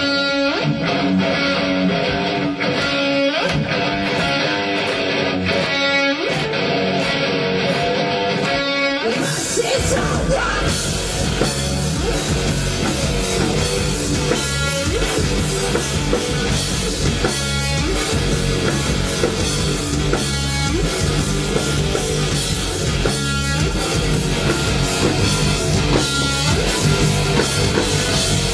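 Heavy metal music led by electric guitar: a thinner guitar opening, then the full band with bass and drums comes in about nine seconds in.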